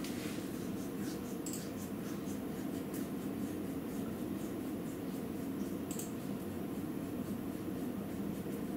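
Heavy rain falling steadily, a constant rushing hiss with scattered light ticks.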